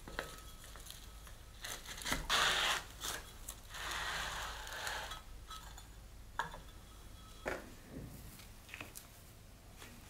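Crumpled kraft paper crinkling and rustling in a few short bursts, loudest about two seconds in and again about four seconds in, with a few light taps between.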